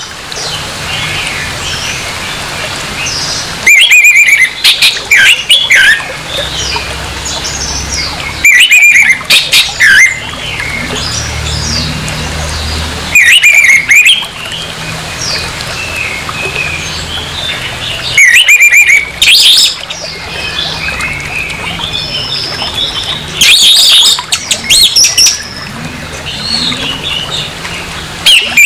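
Orange-headed thrush singing harsh, loud phrases about every five seconds, each lasting a second or two, with quieter twittering between them.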